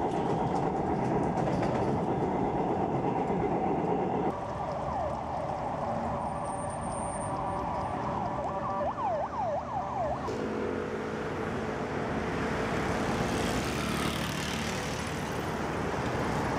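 Ambient vehicle noise from several clips cut together. First a rail car running with a steady hum, then, after a sudden cut about four seconds in, a higher hum with a run of quick rising-and-falling whines. About ten seconds in it cuts again to city street traffic.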